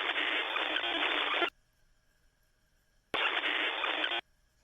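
Two bursts of static-like hiss, each switching on and off abruptly: the first about a second and a half long, the second about a second long, with quiet between them.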